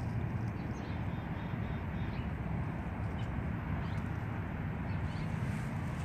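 Steady low rumbling noise, with faint, high bird chirps several times.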